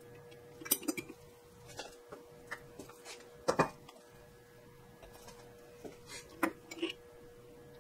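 A small glass bowl and a bottle handled on a stainless steel digital scale: scattered light clinks and knocks of glass on metal, the loudest about three and a half seconds in, over a faint steady hum.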